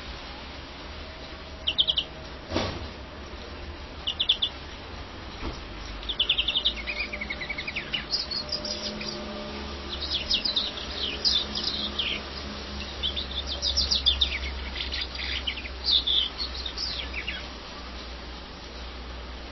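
European greenfinch singing: two short trills, then a long run of twittering, trilling phrases that stops shortly before the end. A single sharp click about two and a half seconds in.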